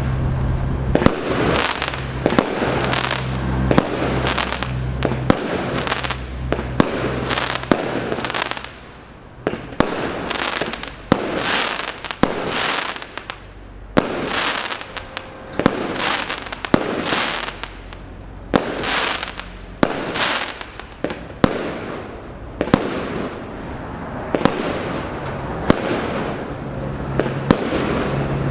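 FC2549 multi-shot firework cake firing a continuous barrage, about one sharp report a second. Each report is followed by a fading hiss.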